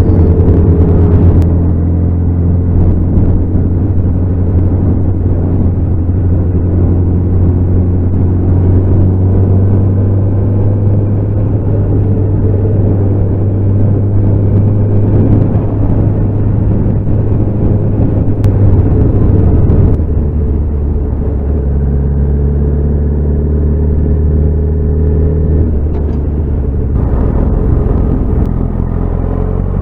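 Motorcycle engine running at a steady cruise. Its note drops about two-thirds of the way through as the bike slows, then climbs again near the end as it accelerates.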